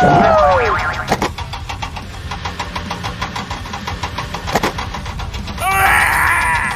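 A vehicle engine running steadily with a rapid even pulse. A falling glide sounds at the start, and a cluster of short arcing tones comes near the end.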